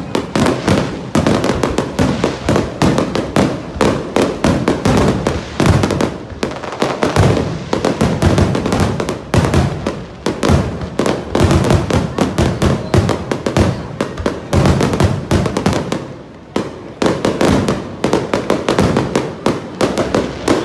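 Fireworks display: a dense, loud run of bangs and crackling, with a short lull about sixteen seconds in.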